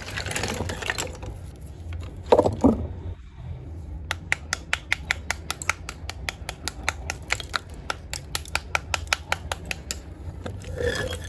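Small hammer tapping a slab of roasted multani mitti (fuller's earth clay) in a fast, even run of light taps, about five a second, to split off its layers. A couple of louder knocks of the clay pieces come about two seconds in.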